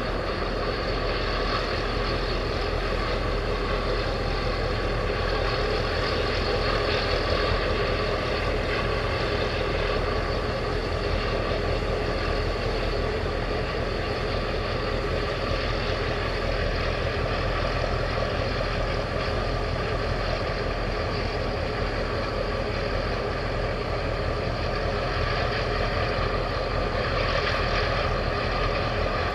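Steady low rumble and hum of a large container ship's engines and onboard machinery as it passes close by, with faint steady tones over the rumble and no change in level.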